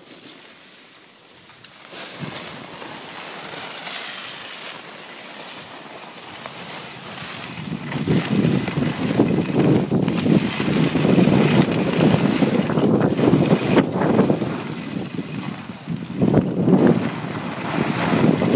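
Wind rushing over a phone's microphone while going downhill on snow, getting louder and gustier about eight seconds in as speed picks up, with a hiss of sliding on packed snow underneath.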